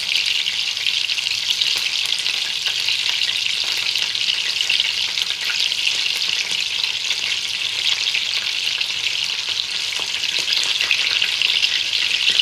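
Chicken frying in hot oil: a steady sizzle with many small crackles and pops.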